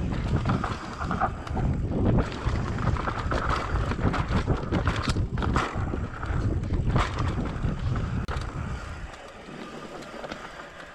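Giant Glory downhill mountain bike riding fast down a rough trail: wind rushing over the microphone, tyres on dirt and rock, and the bike rattling with many small knocks. It quietens near the end.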